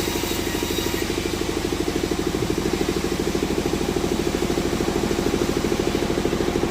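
An engine running steadily at idle with an even, rapid pulsing beat. A faint high whine dies away about a second in.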